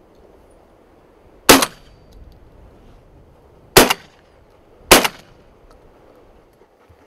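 Three shotgun shots fired with steel-shot cartridges: one about a second and a half in, then a pair about a second apart a couple of seconds later.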